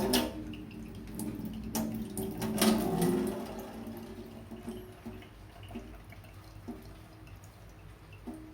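Water running from a tap into a sink, loudest in the first three or four seconds and then dying away.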